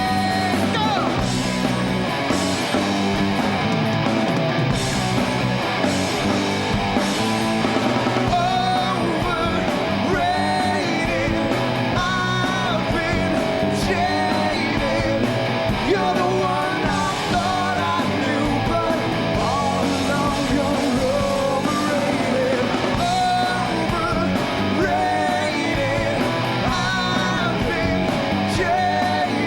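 Rock band playing a song with electric guitars, drums and a male lead singer.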